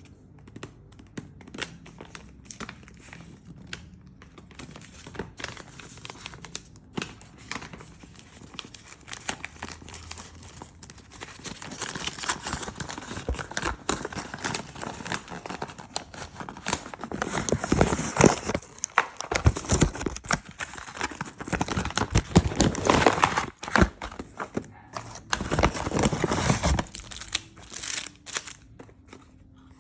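Packaging of a new phone box being unwrapped by hand: plastic film crinkling and tearing, with irregular clicks and rustles of cardboard and plastic. Light at first, much busier through the second half, then dying down near the end.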